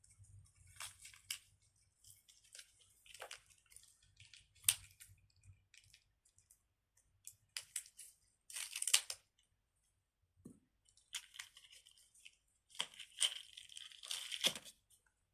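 Irregular crinkling and rustling of plastic in short bursts, as fidget toys and their wrapping are handled.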